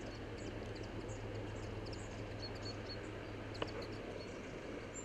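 Outdoor ambience: steady background hiss with a low hum, and faint, short, high chirps of small birds scattered throughout. One brief click a little past halfway.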